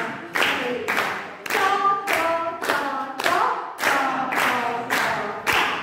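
Hand claps keeping a steady beat of about two a second, with voices singing a short tune between and over them.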